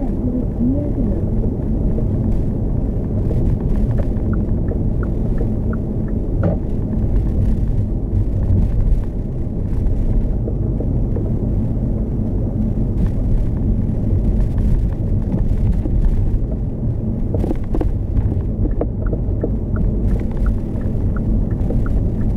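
Hyundai Kona Hybrid driving along, a steady low road and tyre rumble heard from inside the car.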